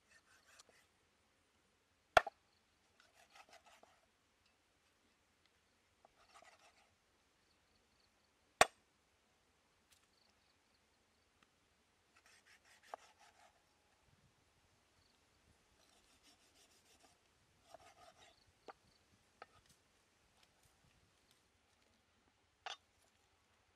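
A large knife slicing through raw stingray wings on a wooden chopping board: soft scraping strokes of the blade through the flesh, with a few sharp knocks of the blade on the board. The two loudest knocks come about two seconds in and about six seconds after that, and a fainter one near the end.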